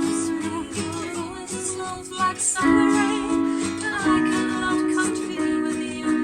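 Music: a song with ukulele and guitar and a singing voice.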